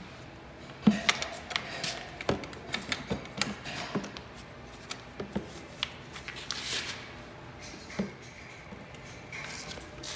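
Irregular light clicks, taps and rubbing as parts and a small hand tool are handled on a Honda CRF450R's carburetor and fuel tank, with a short scraping rub a little past the middle.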